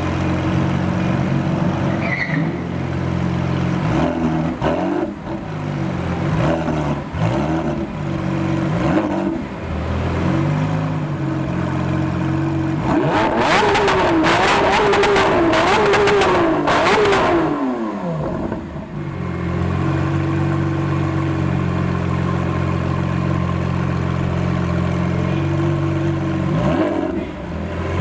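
Lamborghini Aventador SVJ Roadster's naturally aspirated V12 idling and being blipped in several short revs. About halfway through it revs high and hard for a few seconds with a burst of crackles, then the pitch falls away and it settles back to a steady idle, with more revs near the end.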